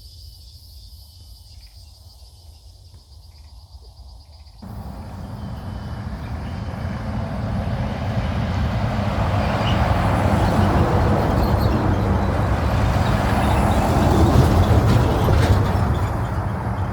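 Crickets chirping steadily, then about four and a half seconds in a loud rushing rumble starts abruptly and keeps growing, drowning the crickets out.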